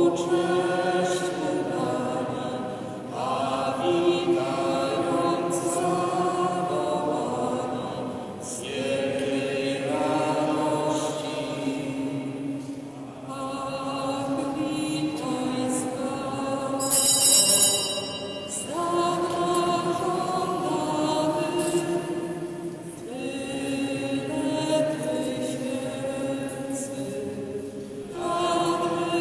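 Choir singing a slow Christmas carol in long held phrases, with a short break every four to five seconds. About 17 seconds in there is a brief, loud, high-pitched sound over the singing.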